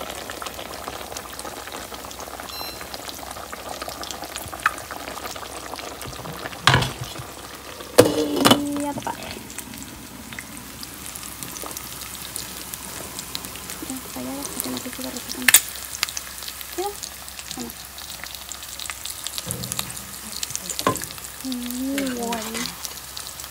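Eggs frying in shallow hot oil in a stainless steel pan, a steady sizzle and crackle as the whites crisp and brown at the edges. A few sharp knocks stand out, about a third of the way in and again past the middle.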